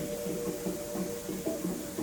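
Background music: a steady run of short low notes at an even pace.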